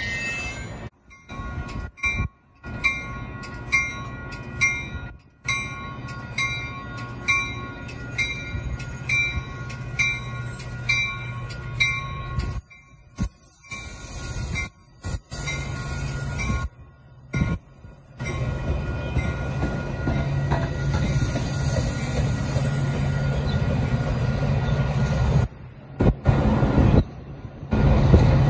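Metra bilevel commuter train running through a grade crossing, with the crossing bell ringing about one and a half strokes a second for the first twelve seconds, then the train's steady low rumble, growing louder near the end.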